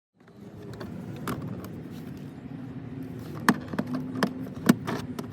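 Sharp clicks and light rattling of plastic trim and parts being worked loose inside a car's interior door, over a steady low hum. The clicks come in a quick series in the second half.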